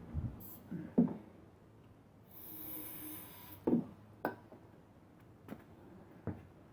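A short hiss from an aerosol can of starting fluid, lasting just over a second, sprayed into a lawnmower engine's intake. It comes amid scattered knocks and clicks from handling the engine and tools.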